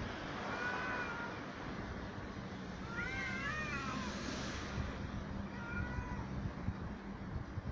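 Domestic cats yowling at each other in a fight standoff, with drawn-out wavering growl-yowls in three bouts. The middle bout, around three seconds in, is the longest, with several pitches crossing at once.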